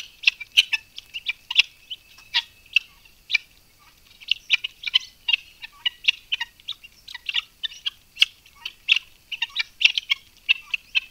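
Birds chirping: many short, sharp, high-pitched chirps at an irregular pace of a few per second.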